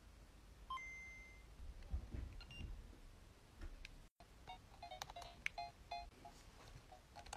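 Faint electronic beeps: one held beep about a second in, then a run of short, quick paired beeps in the second half.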